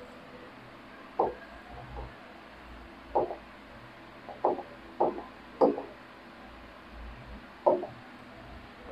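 Marker tip knocking against a whiteboard while writing: six short, sharp taps spread unevenly, three of them close together about halfway through.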